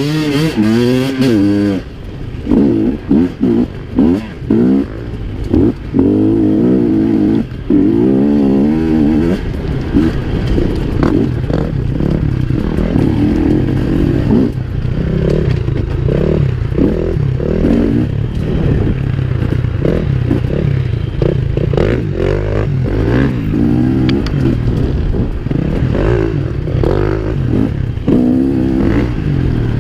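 Dirt bike engine revving up and down over and over as it is ridden hard along a rough dirt track, with a few short knocks from the bumps.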